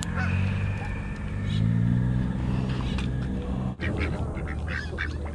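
A low motor hum swells and fades over the first few seconds. After a sudden break, white domestic ducks quack in short, rapid calls.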